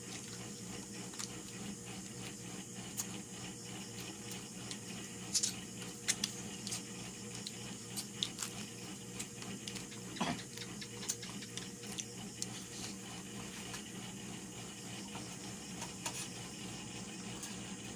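Eating sounds: small irregular clicks and cracks from handling and eating seafood and chicken, a few louder ones in the middle, over a steady low hum.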